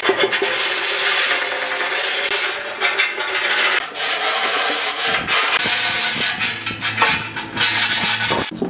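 Sandpaper rubbed back and forth along the cut edges of a thin steel drum, a rasping scrape in repeated strokes, smoothing the burrs left by the grinder.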